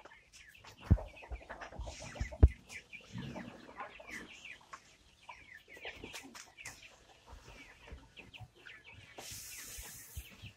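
Kampung chickens clucking and peeping with many short calls, interrupted by two sharp knocks about a second and two and a half seconds in, and a brief hissing rustle near the end.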